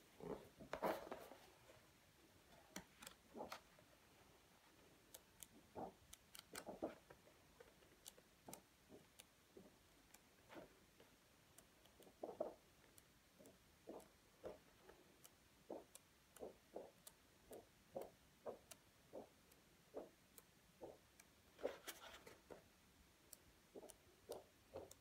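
Paper pages of a paperback book being turned by hand, a soft rustle or flick with each page. Page turns come one or two a second through the second half, with heavier handling of the cover and pages near the start and again near the end.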